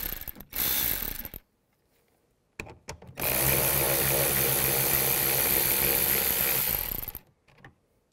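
Power drill spinning a 10mm socket to back out door panel screws: a short run that dies away about a second in, a few clicks, then a steady run of about four seconds that stops abruptly.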